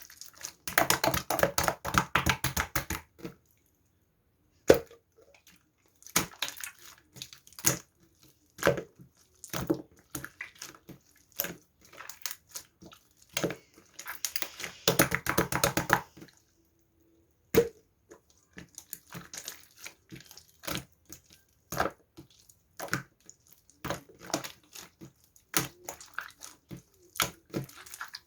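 Bursts of rapid crackling clicks, with scattered single sharp clicks between them.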